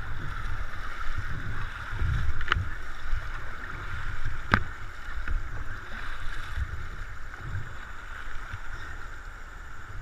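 River water rushing past an inflatable canoe as a steady hiss, with wind rumble on the microphone. Two sharp knocks about two seconds apart early on.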